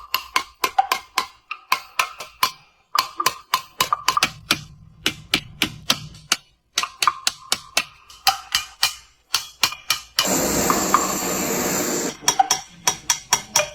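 Small hammer tapping metal in quick runs of sharp strikes, several a second with short pauses, as when a metal vessel is shaped by hand. About ten seconds in, a steady hiss takes over for about two seconds before the tapping resumes.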